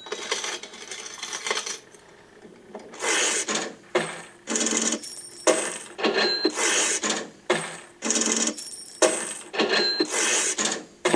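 Coins clinking and a cash register clanking, with a bell-like ding, in a rhythmic looped pattern that repeats about every three and a half seconds.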